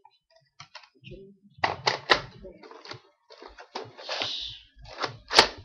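Plastic clicks and clacks of a Nerf blaster being handled and reloaded with a fresh dart clip, a string of separate knocks with the sharpest one near the end.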